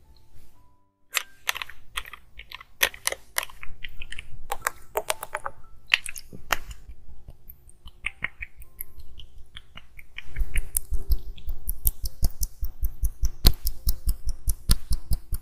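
Sticky, crackly hand sounds of milky lotion being worked between the palms. About ten seconds in, they turn into quick, even patting at about five pats a second.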